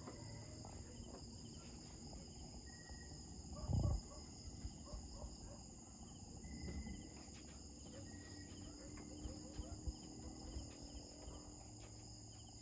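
Faint, steady chorus of night insects, with a brief low thump about four seconds in.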